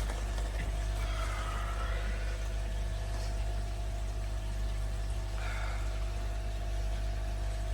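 Steady low hum with a wash of running water, typical of a pond pump and water flow running continuously.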